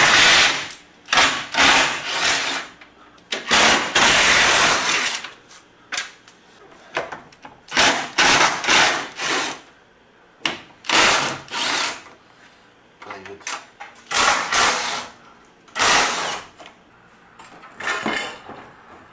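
Cordless drill spinning out the bolts that hold a golf cart's roof struts, in a dozen or so short runs of the motor with pauses between them, the longest about four seconds in.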